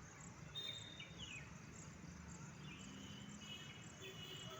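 Faint outdoor ambience of insects chirping in a steady, regular rhythm, with a few short falling calls.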